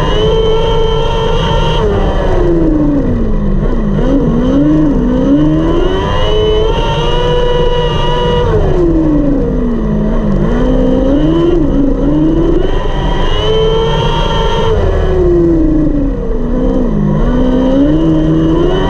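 A 600cc micro sprint car's motorcycle engine racing at full throttle, heard from the cockpit. The revs rise and hold high on each straight, then drop and climb back through each turn, about three times over.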